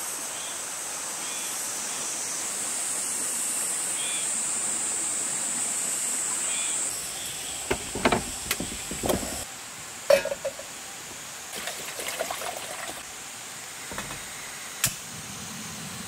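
Steady outdoor rush with a high, even hiss for the first half. Then metallic clatter and knocks as a stainless portable gas stove and steel cup are handled and set down, and a single sharp click a second before the end as the burner is lit.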